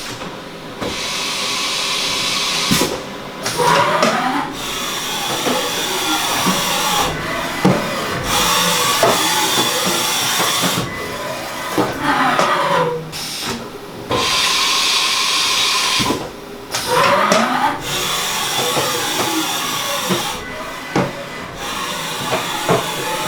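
Haas VF-4SS CNC vertical machining centre running: repeated whines that glide up and down in pitch every few seconds as its in-line spindle speeds up and slows down, over a steady hiss, with scattered sharp clicks and knocks.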